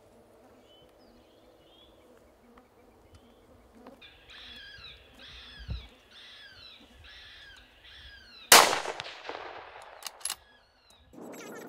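A run of about five short calls, each falling in pitch, then a single loud gunshot with a long fading echo, followed by two short sharp cracks.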